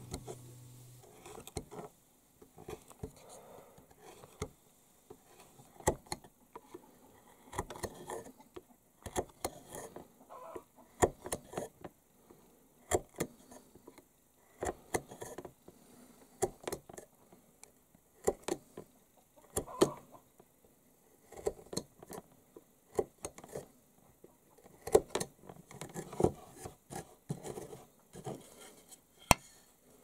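Hand carving chisel cutting into Amur cork tree wood: irregular sharp clicks and short scraping cuts, often several in quick succession, as wood is pared away.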